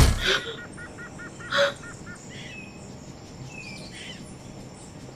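Forest birdsong ambience: a quick run of about seven short chirps about a second in, then a few faint scattered bird calls. A single sharp hit sounds at the very start.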